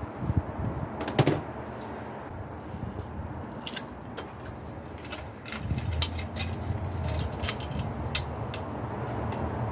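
Sharp metallic clicks and clinks of tools and parts being handled while a mountain bike is stripped down. The loudest come about a second in, with many more in quick succession later on, over a steady low rumble.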